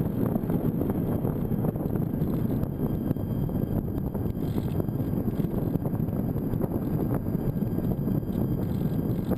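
Airflow rushing over a GoPro camera mounted on a Parkzone Radian Pro RC glider in flight, a steady low rumble of wind buffeting the microphone.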